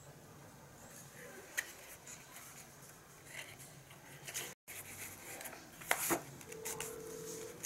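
A few light taps and clicks of hand work, scattered and sparse, with a sharper click about a second and a half in and another about six seconds in.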